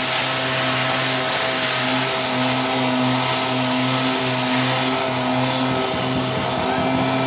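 Orbital sander with dust-extraction hose running steadily as it is worked over body filler on a car door, smoothing the filled dent. A constant motor hum with a steady suction hiss.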